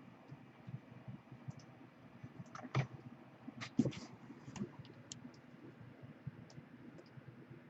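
Irregular clicks and taps of a computer mouse and keyboard being used to copy and paste results into a spreadsheet, a few louder ones about three to four seconds in.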